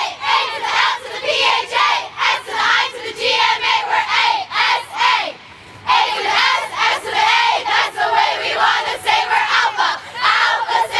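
A group of sorority women chanting loudly together in unison, with a short break about five and a half seconds in.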